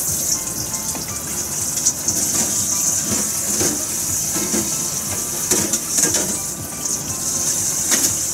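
A pot of fish-bone stock boiling on a gas stove: water bubbling with scattered pops over a steady high hiss, which stops abruptly at the end.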